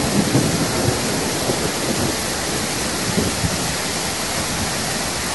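Muddy floodwater rushing down a road in a torrent: a steady, dense rush of water noise.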